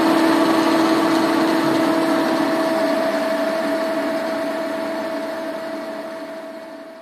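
Vertical milling machine running as its end mill cuts a slot into a stainless steel plate: a steady machine hum with a constant tone over a hiss of cutting noise. It fades out gradually over the last few seconds.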